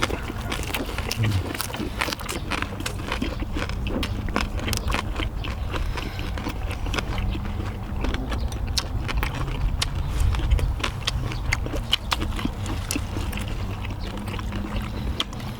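People eating: chewing and smacking, with many small irregular clicks of chopsticks and tableware against dishes, over a steady low rumble.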